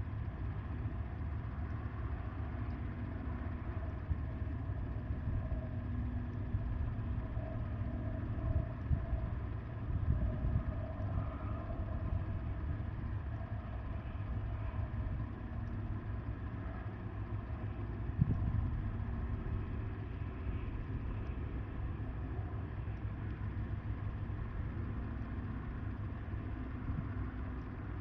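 Wind buffeting the microphone: a constant low rumble that swells in irregular gusts, the strongest about 18 seconds in, with faint wavering tones above it.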